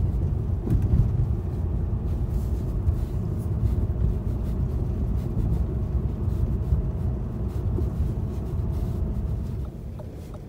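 Low road rumble and tyre noise of a Lada Vesta Cross driving over a broken, potholed road, with frequent small knocks and rattles from the bumps. It gets quieter near the end.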